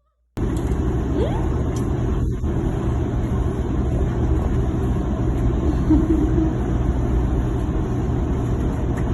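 Washing machine running with a steady low rumble, cutting in suddenly about half a second in.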